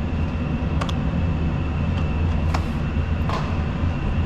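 Furnace/AC unit running with a steady low hum and a faint high whine after a new capacitor got it kicking on properly, with a few light ticks about a second in and near the end.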